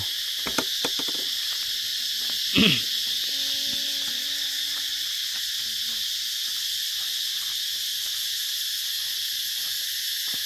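Steady high-pitched chorus of insects chirring in dense vegetation. A brief loud sound comes about two and a half seconds in, and a faint held low tone follows for a second or two.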